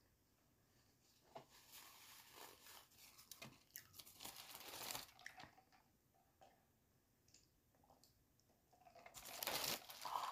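Plastic takeaway bag crinkling and rustling as fried chicken is handled, in two spells: one from about a second in, and a louder one near the end.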